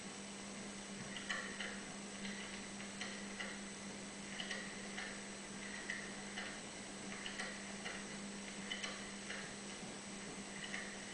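Telephone being dialled: a string of short, irregular clicks about every half second, over a steady low hum from the TV speaker.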